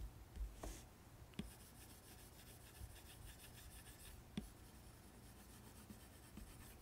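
Apple Pencil tip tapping and stroking on an iPad Pro's matte screen protector: faint, quick scratchy strokes, with a few light taps, one of them about four seconds in.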